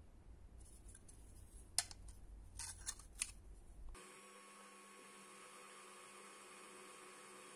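A few sharp clicks over a low rumble, then from about four seconds in a steady electric hum holding several even tones.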